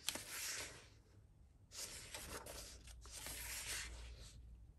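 Pages of a paperback coloring book being turned and handled: faint paper rustling and sliding, in two stretches with a quiet gap of about a second between them.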